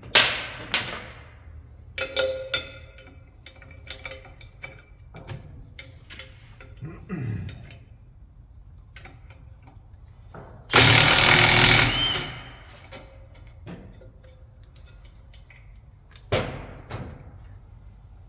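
Wrench and socket clanks and ticks on the four bolts that hold the rear brake assembly. In the middle, a loud rattling power tool runs for about a second and a half.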